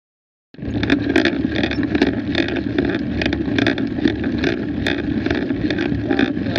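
Mountain biking on a dirt singletrack trail, heard through a Garmin VIRB action camera riding along on a bike: a steady rumble of tyres and wind with frequent irregular rattles and clicks from bumps. It starts abruptly about half a second in.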